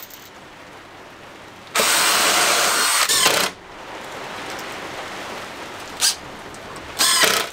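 Cordless drill running into OSB board, boring pilot holes and driving screws: one run of about two seconds, then a sharp click, and a short burst near the end.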